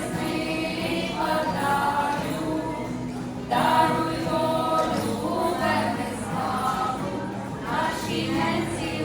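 Choir singing, with held notes and several voices together; it becomes louder suddenly about three and a half seconds in.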